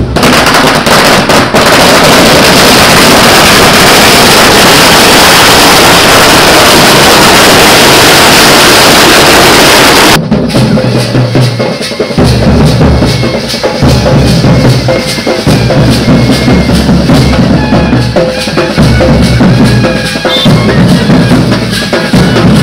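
A string of firecrackers crackling and banging in one dense, continuous volley for about ten seconds. It gives way abruptly to drum-led music with a steady beat.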